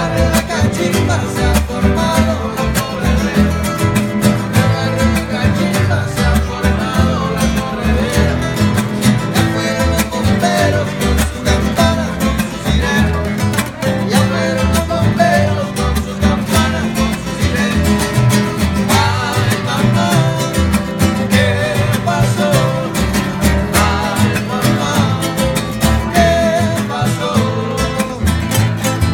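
Live acoustic band playing: an upright bass plucked in a steady rhythm under strummed classical guitars, with a man singing the melody.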